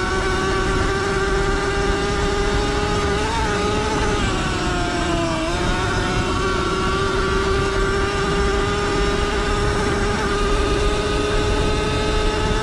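Sur-Ron L1E electric dirt bike's motor and drivetrain whining at riding speed, the pitch dipping briefly about five seconds in and then climbing back. A dense low rumble of wind and tyres on sand runs underneath.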